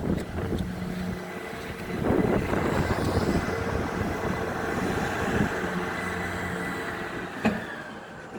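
Tractor engine running steadily, with a single sharp knock near the end.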